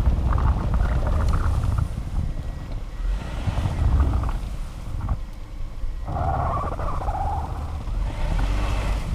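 Car engine running while the car is manoeuvring in snow, with wind rumbling on the microphone.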